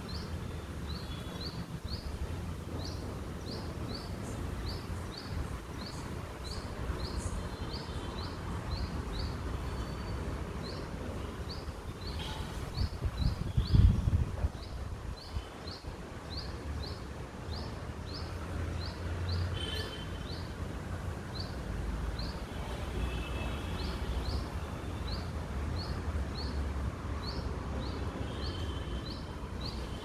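A small bird chirping over and over, short rising chirps at about two a second, over a low rumble of wind on the microphone, with a louder gust of rumble about halfway through.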